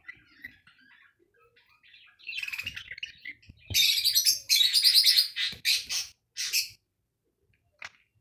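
A budgerigar bathing in a water bowl: soft chirps at first, then from about two seconds in, bursts of splashing and wing-flapping in the water, loudest in the middle and stopping about seven seconds in.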